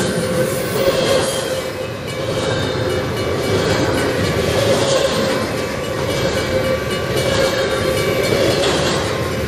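Double-stack intermodal train of container-laden well cars rolling past close by: a steady rumble of wheels on rail, with a steady ringing tone over it.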